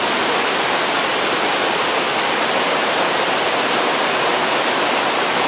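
Steady rain falling on pavement: a loud, even hiss.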